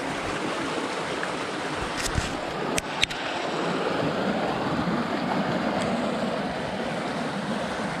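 Creek water rushing steadily over rocks, with a few sharp clicks about two to three seconds in.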